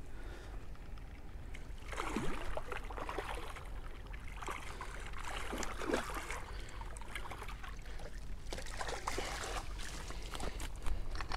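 A small hooked common carp thrashing at the surface in shallow water by the bank, splashing in several bouts with water sloshing between them.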